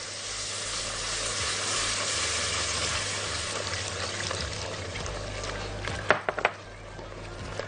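Hot butter-and-flour roux sizzling in a metal pot as broth is poured in and whisked with a silicone whisk; the sizzle eases off after about five seconds. A few quick taps of the whisk against the pot follow about six seconds in.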